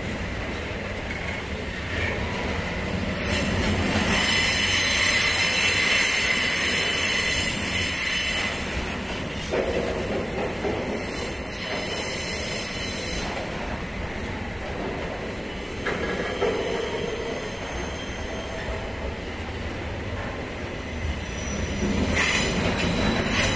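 Container wagons of a freight train rolling past, the steel wheels squealing on the curving track. The squeal is loudest for several seconds about a quarter of the way in and rises again near the end, with a few sharp knocks in between.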